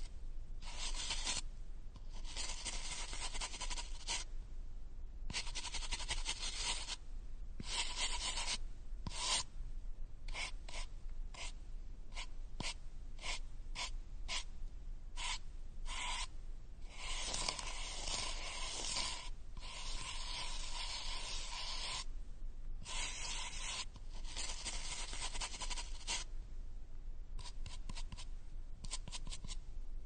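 Teeth being brushed with a toothbrush: stretches of scrubbing broken by short pauses, with runs of quick short strokes in places.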